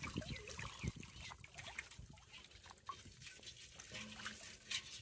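Live prawns, crabs and eels stirring in a shallow container of water: faint wet clicks, splashes and little squeaks, with a few low handling bumps in the first second or so.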